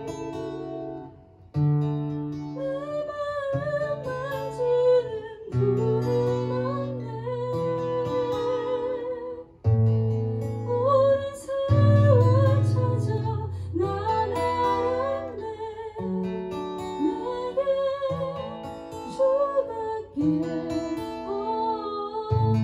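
A woman singing a slow worship song with vibrato, accompanied by acoustic guitar and sustained low notes.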